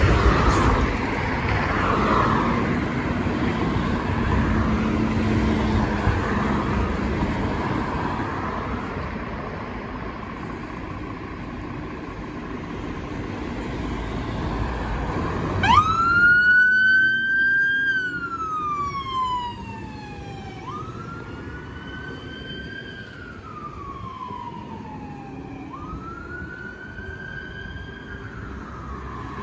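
Turntable ladder fire engine's diesel engine running as it pulls away, then about halfway through its two-tone-free wail siren starts: a quick rise and a slow falling glide, three times over, getting quieter as the vehicle moves off.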